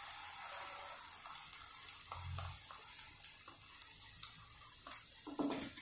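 Faint sizzle of hot oil and fried onion in a kadhai as tomato puree is poured in, with a few light clicks of a ladle scraping the puree out of a plastic bowl and a louder knock near the end.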